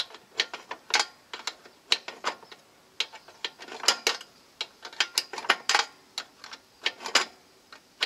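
Ratchet wrench clicking in short irregular runs with brief pauses while tightening a nut on a riding mower's pedal and steering linkage.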